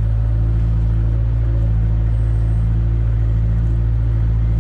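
Engine of a cab-operated auger rig running steadily with a deep, even drone while the auger bores a pile hole.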